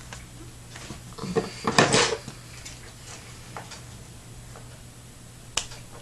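A low steady hum under a few light knocks, clicks and rustles of small objects being handled and set down. The loudest cluster comes about two seconds in, with a sharp click near the end.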